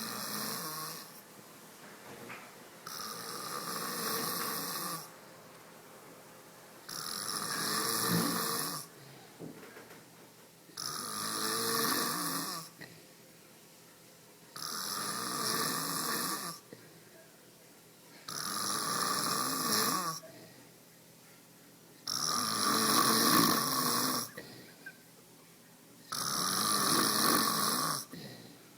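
A man snoring in a steady rhythm: eight long, rasping snores, each about two seconds long and coming about every four seconds, with quiet breaths in between.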